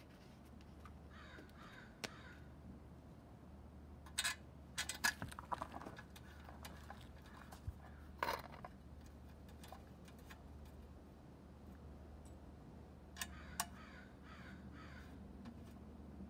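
Quiet handling of small metal fittings, with a scattered handful of sharp clicks and taps as the whistle and safety valve are fitted back onto a small oscillating steam engine's boiler.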